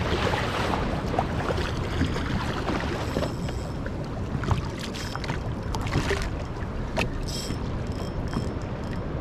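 Choppy sea water splashing and sloshing against a plastic kayak hull, with wind on the microphone and scattered small clicks and knocks.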